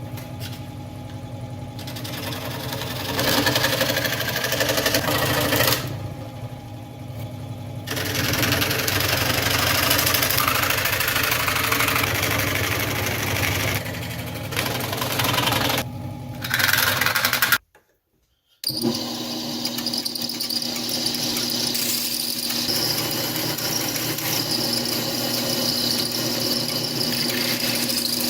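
Power tools at work on a Kydex sheath. A varying motor-driven run breaks off in a short silence about two-thirds through, then a steadier machine run with a constant hum and a high whine.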